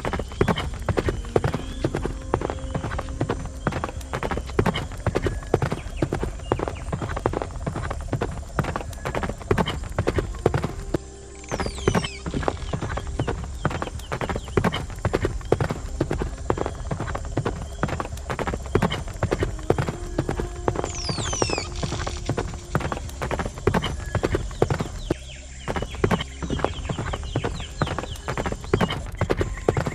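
Horse hooves clip-clopping in a quick, steady rhythm, breaking off briefly about eleven seconds in and again near twenty-five seconds. A few short, high, falling chirps sound over the hoofbeats.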